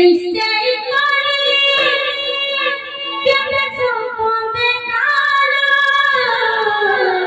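A woman singing a Sambalpuri folk song into a microphone, in long held notes that bend and slide. The melody falls in pitch near the end.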